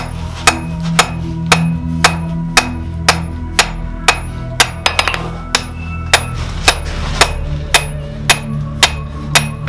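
Blacksmith's hand hammer striking a red-hot 20 mm round mild steel bar on an anvil, flattening the jaw end of a pair of tongs. The blows come steadily, about two a second, each with a short metallic ring.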